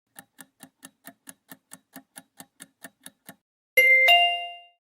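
Quiz countdown-timer sound effect: clock-like ticks at about four or five a second, then a louder two-note ding-dong chime, the second note higher, marking the end of the answer time.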